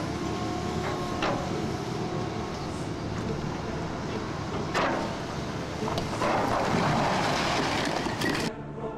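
Building demolition: heavy machinery rumbling with crunching and clattering of breaking material and debris. There is a sharp crack about five seconds in, and a louder stretch of crashing debris from about six seconds until the sound cuts off near the end.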